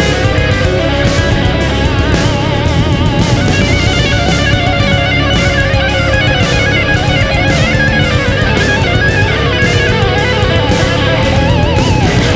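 Heavy metal music with distorted electric guitar, a wavering lead line and a steady drum beat.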